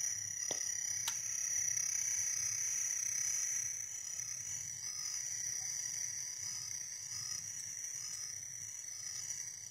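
Marsh chorus of frogs and insects: a steady high-pitched trill with short calls repeating over it, and two faint clicks about half a second and a second in.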